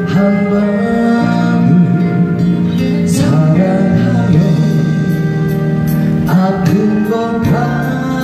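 A man singing a Korean ballad into a handheld microphone over instrumental backing music.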